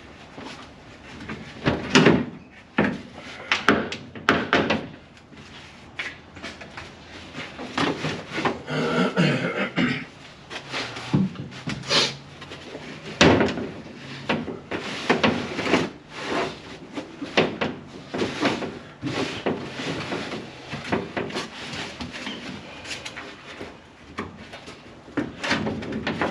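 Repaired sheet-steel floor pan knocking, clunking and scraping against a Range Rover Classic's body as it is forced into place for a dry fit. An irregular string of sharp metal knocks and scrapes.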